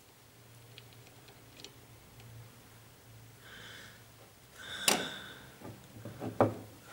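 Metal tools clinking and knocking on a mower's hydrostatic gearbox during an oil drain: a short scrape, then one sharp, ringing metallic clank about five seconds in, followed by a few quicker knocks. A faint low hum sits underneath.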